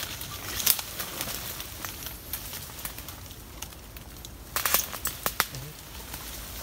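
Dry leaves and brush crackling and twigs snapping as a person pushes through dense undergrowth on foot, with a cluster of sharp snaps about four and a half to five seconds in.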